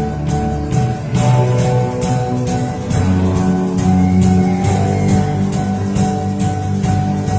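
Live church band playing: acoustic and electric guitar, bass and piano over a drum kit keeping a steady beat on the cymbals.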